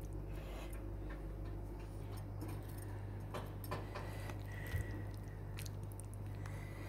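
Scattered light clicks and taps of a serving spoon, pan and dishes being handled in a kitchen, over a steady low hum; one soft knock about two-thirds of the way in.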